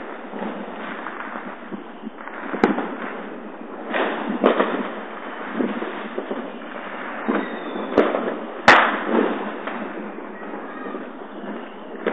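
Fireworks and firecrackers going off near and far: a constant crackle of bangs, with four sharp, closer bangs, the loudest about three-quarters of the way through.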